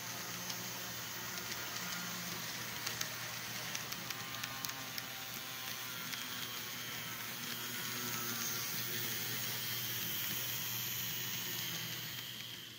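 Model train running along the layout track: a steady whir and hiss from the Life-Like GP20 model locomotive's small motor and the rolling wheels. A run of light clicks comes a few seconds in, and the sound grows a little louder as the train draws close.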